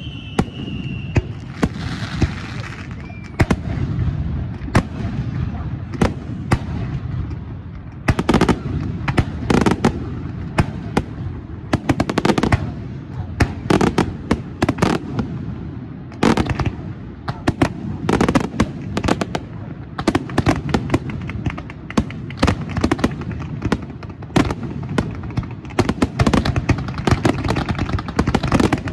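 Aerial fireworks display: shells bursting in a rapid, irregular series of sharp bangs and crackles over a continuous low rumble. A falling whistle from a whistling shell fades out about a second in.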